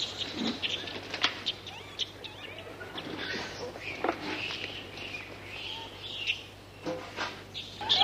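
A baby macaque eating mango, with scattered sharp wet clicks and smacks from its mouth working the fruit. High, short chirping calls come and go through the middle.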